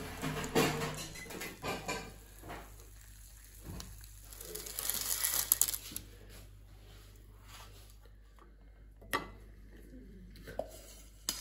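Baking parchment crinkling and a slotted spatula scraping on a baking tray as a baked salmon fillet is lifted off, loudest about halfway through; later, two sharp clicks of the spatula against a china plate. A music tail fades out in the first second.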